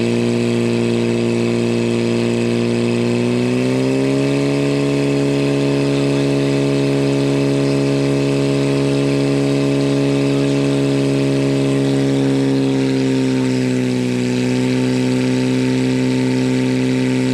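Portable fire pump's engine running flat out, driving water through the hoses to two jets. Its pitch steps up about four seconds in, sags slightly around fourteen seconds, and otherwise holds steady.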